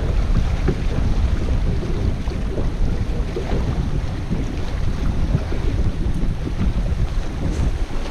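Wind buffeting the microphone: a heavy, uneven low rumble with no break.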